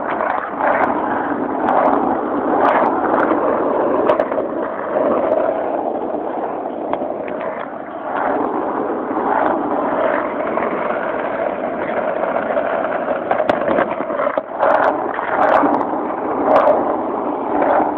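Skateboard wheels rolling fast over street pavement, a steady rumble with scattered sharp clicks.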